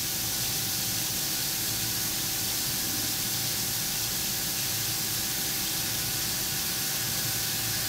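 Mill-turn CNC lathe running a facing cut with a turning insert: a steady hiss of coolant spray over the even hum of the machine, with a faint steady tone.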